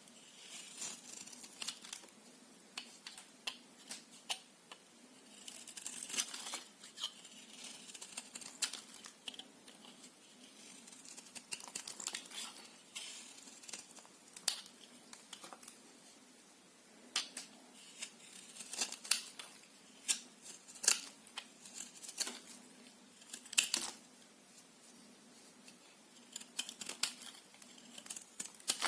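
Bar of soap being cut with a blade: a run of sharp, irregular clicks and crackles, with a few short scraping stretches.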